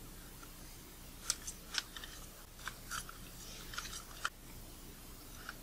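Faint, scattered small clicks and scrapes of plastic parts of a Nikkor 18-55mm kit lens being handled and twisted, as its optical block is worked back in to get its slot into the cam.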